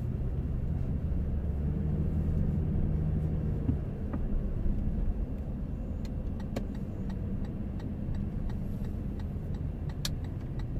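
Steady low engine and road rumble of a car heard from inside the cabin while driving, with a few faint clicks.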